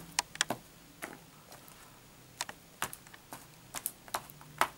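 Light, irregular taps and clicks of a lump of homemade hand gum being pressed and tapped on a tabletop, loudest near the end.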